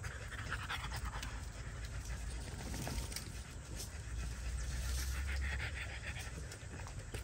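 A dog panting steadily, with faint clicks of hand scissors snipping through a sheep's thick wool.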